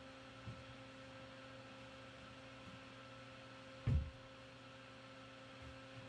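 Steady electrical mains hum, with a single dull, low thump about four seconds in.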